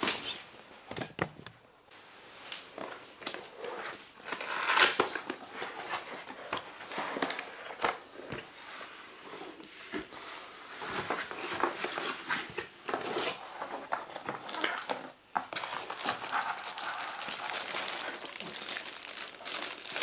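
Cardboard keyboard box being opened and its packaging handled: irregular rustling, scraping and light knocks of cardboard, and crinkling of the plastic bag around the keyboard.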